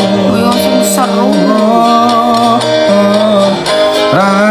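Music: a slow Javanese love song, one voice holding long sung notes that glide between pitches and waver near the end, over plucked-string accompaniment.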